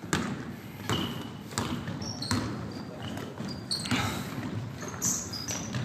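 Basketball dribbled on a hardwood gym floor: several sharp, irregularly spaced bounces that echo in the gymnasium, with a few short high squeaks from sneakers on the court.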